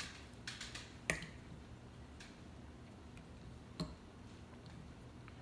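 Wire cutters and fingers working the wires on a small battery: a few scattered sharp clicks and snips, the sharpest about a second in and another just before four seconds.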